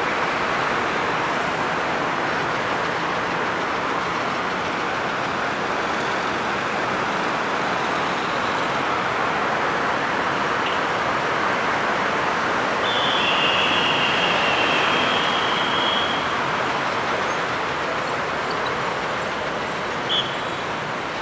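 Steady noise of dense multi-lane road traffic: car and bus engines and tyres. A little past halfway a high squeal lasts about three seconds, and near the end comes a short high chirp.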